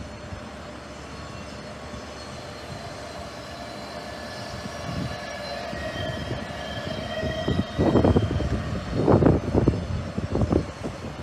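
Jet airliner engines whining steadily, the pitch rising slightly midway. Over the last few seconds, loud irregular gusts of wind buffet the microphone and become the loudest sound.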